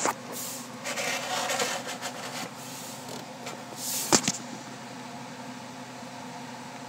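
Handling noise from a clear hard-plastic protective case being turned in the hands: rubbing and scraping for the first couple of seconds, with sharp plastic clicks near the start and about four seconds in, over a steady background hum.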